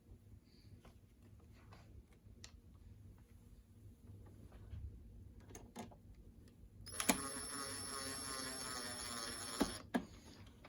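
Light clicks and taps of plastic parts being handled. About seven seconds in, a cordless power screwdriver runs steadily for about three seconds, driving in a cover screw, then stops abruptly with a click.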